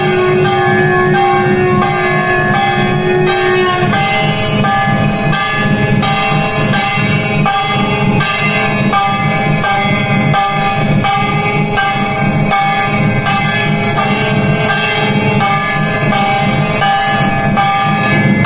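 Temple bells ringing during an aarti lamp offering, struck over and over in a steady rhythm with a dense, lingering ring. A held tone under them stops about four seconds in.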